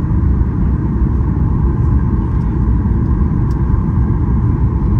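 Steady rumble of an airliner cabin, with engine and airflow noise heard from inside, and a steady band of tone in the middle.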